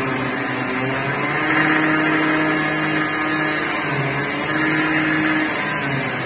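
A motor running with a steady droning hum, swelling twice.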